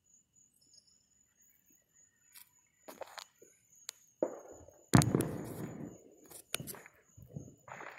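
Aerial firework shells bursting at a distance: a string of booms at uneven intervals, each trailing off in a rolling rumble, with a few sharper cracks among them. The loudest boom comes about five seconds in.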